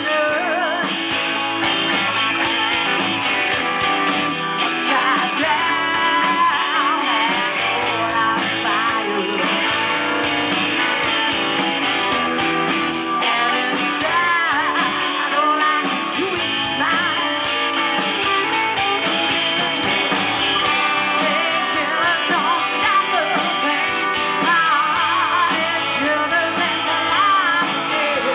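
Live blues-rock band playing: electric guitars, bass guitar, drums and keyboard, with a woman singing over them. The music is loud and steady, with bending, wavering lead lines.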